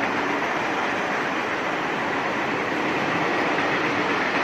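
Steady, loud rushing noise with no distinct events.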